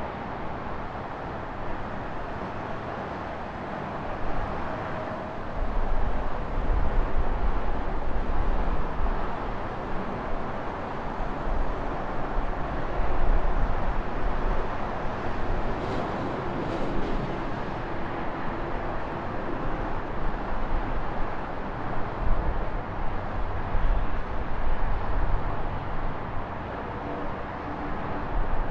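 Steady road and traffic noise heard from a moving bicycle, with a low rumble that swells and falls from about five seconds in.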